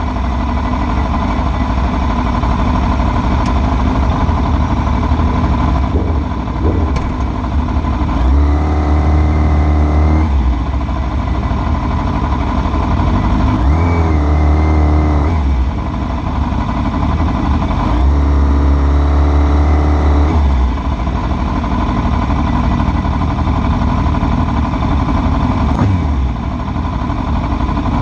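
Motorcycle riding in slow city traffic: engine running under a steady low wind rumble on the microphone. The engine note swells and shifts pitch three times, about nine, fourteen and nineteen seconds in, as the bikes pull away.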